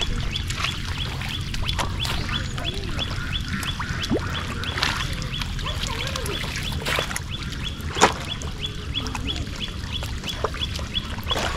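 Splashing and sloshing in shallow muddy water as small catfish are scooped by hand and bowl, with scattered sharp splashes, the strongest about eight seconds in. Under it run a steady low rumble and a regular high ticking about three times a second.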